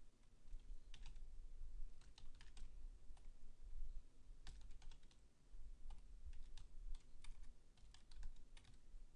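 Typing on a computer keyboard: irregular keystrokes, some single and some in quick runs of several keys, over a steady low hum.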